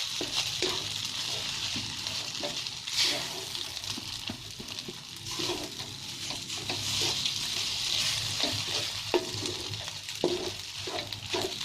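Fried rice sizzling in a hot pan with butter and oil while being stirred, with a steady hiss and irregular scrapes and taps of the utensil against the pan.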